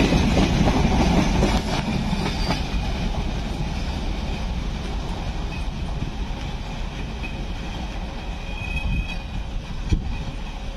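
Container freight train's wheels and wagons rumbling and clattering over the rails as the guard's van at its tail passes close and draws away. The sound fades steadily, and there is one sharp knock near the end.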